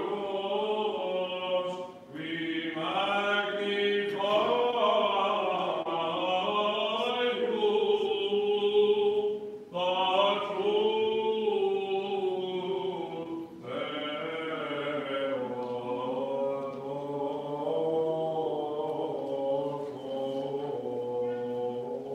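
Unaccompanied Byzantine chant of the Greek Orthodox Divine Liturgy, sung in long, drawn-out melodic phrases with brief pauses for breath between them.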